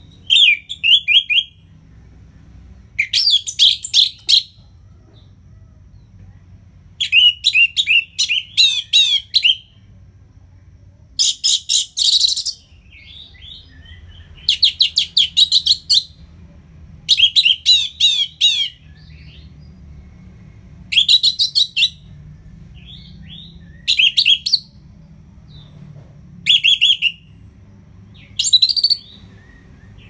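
Orange-headed thrush singing in loud phrases of rapid, repeated high notes. There are about ten phrases, each a second or two long, with pauses of one to three seconds between them.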